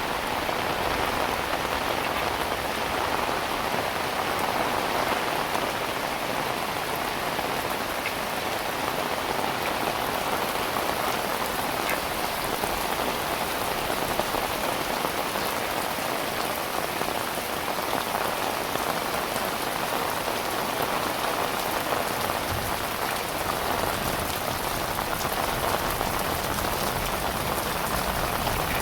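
Heavy rain falling steadily, a dense even hiss with many individual drops ticking close by.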